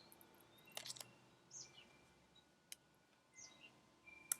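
Faint bird chirping: a short call sweeping downward, repeating about every two seconds. A few sharp clicks come in between, from cards being handled.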